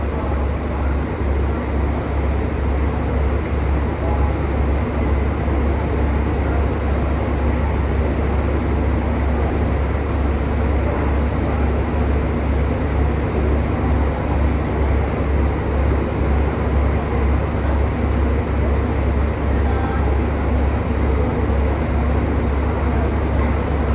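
Steady low hum of a JR Kyushu 813 series electric train standing at a station platform, under a constant murmur of voices and footsteps from the crowded platform.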